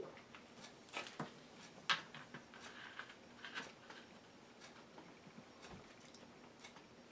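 Faint, scattered clicks and soft mouth and hand noises of a man eating a sandwich, the sharpest click about two seconds in.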